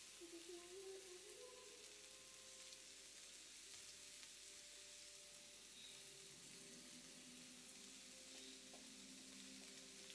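Meat sizzling steadily on an indoor Korean BBQ grill, a soft continuous crackling hiss.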